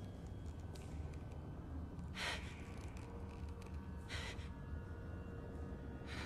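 A frightened woman's sharp, gasping breaths, three quick inhales about two seconds apart, over a steady low rumble.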